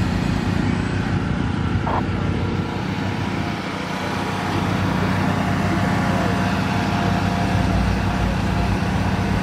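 An engine running steadily, a low even hum over general outdoor noise, easing a little about four seconds in.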